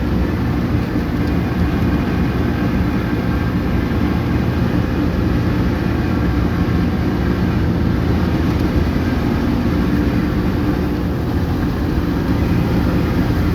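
Grass baling machine running steadily: a loud, constant engine-driven mechanical sound with no pauses or bangs.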